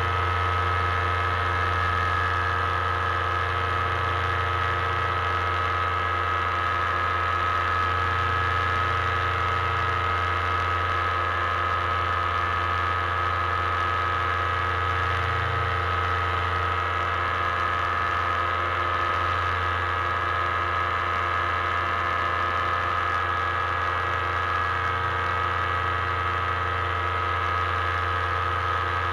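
Paramotor engine and propeller running steadily in flight at constant power, a continuous drone with a high, steady whine over it.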